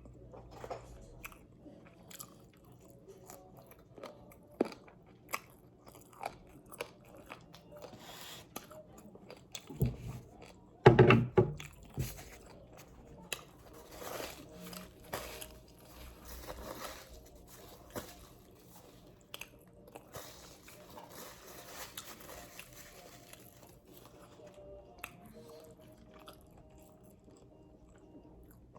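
Close-up chewing and biting of extra-crispy fried chicken wings, with many short crunches and crackles and a louder cluster of crunches and knocks about ten to twelve seconds in.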